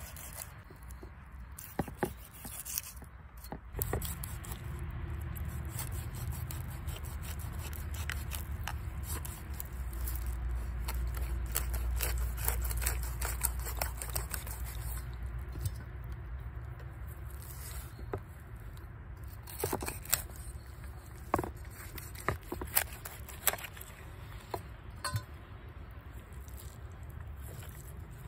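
Large kitchen knife scraping scales off a whole stone bass and then cutting through the fish on a wooden cutting board, with sharp scrapes and taps of the blade against the board. A low rumble runs for several seconds in the middle.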